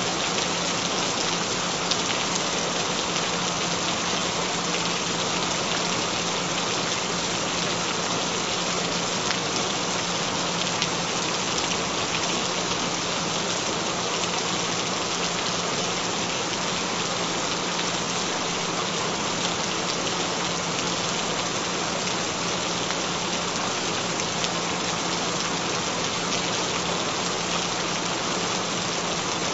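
Steady, even rainfall pattering on a surface, with a faint steady low tone running underneath.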